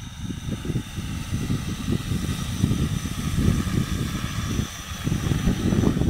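Wind buffeting the microphone in uneven gusts, over the steady high whine of a JT6L-606 agricultural sprayer drone's spinning propellers as the drone flies nearer.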